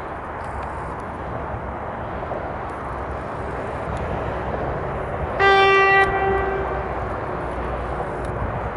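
Pesa Dragon2 six-axle electric locomotive hauling a container train on approach, its steady rumble slowly growing louder. A little past halfway it sounds one short single-tone horn blast of about half a second, the loudest thing here.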